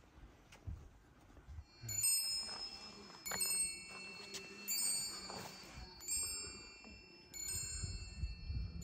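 Metal tube wind chimes ringing: starting about two seconds in, five clusters of clear high notes struck roughly a second and a half apart, each left to ring on.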